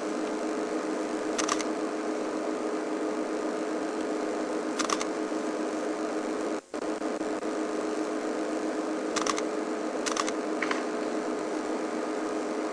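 Steady mechanical hum with a few brief, high-pitched clicks scattered through it; the sound drops out for an instant about halfway through.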